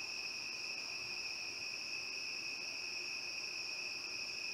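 Crickets trilling in a steady night chorus: an unbroken, high-pitched hum at two pitches.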